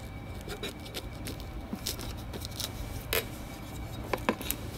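Mini cleaver slicing and scraping through the plastic shrink wrap on a Blu-ray box set, with irregular crackles and sharp clicks of the plastic.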